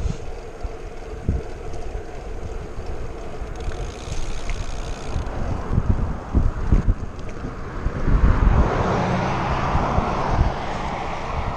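Wind buffeting the action camera's microphone while riding a road bike, with gusty low rumble throughout. About eight seconds in, a car's engine and tyre noise swells as it goes by, then eases off.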